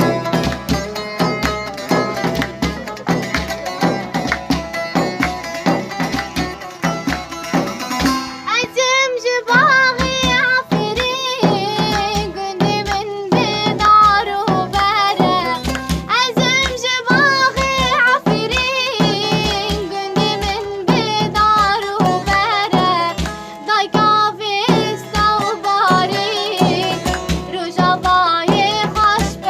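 Kurdish folk song: instrumental backing over a steady drum beat, joined about eight seconds in by a young woman's voice singing a slow, wavering, ornamented melody.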